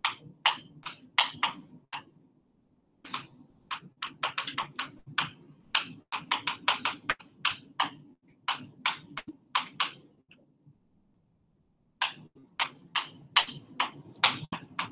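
Marker pen writing on a writing board: a quick, irregular run of short squeaks and taps from the pen strokes, pausing twice for about a second.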